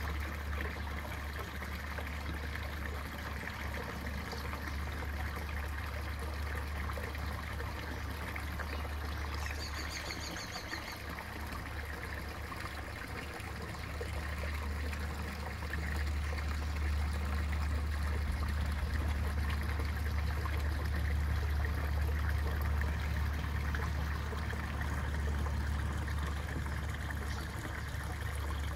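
Steady trickle of water running into a garden pond, over a constant low rumble, with a short high chirp about ten seconds in.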